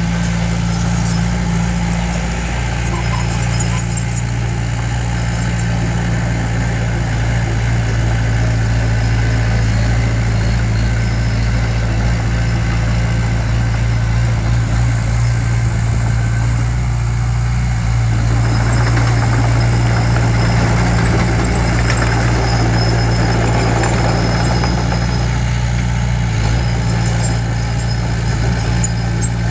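Heavy diesel construction-machine engine running steadily at a low, even pitch. A harsher, rougher noise joins for several seconds past the halfway point.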